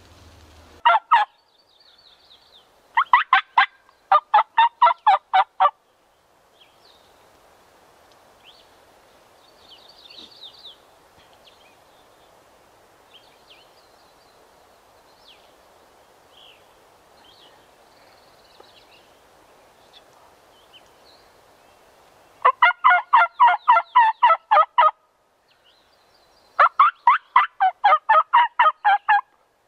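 Turkey calling in loud bursts of rapid, evenly repeated notes: three short bursts in the first six seconds, then a long quiet stretch, then two longer runs of two to three seconds each near the end. Faint songbird chirps come between.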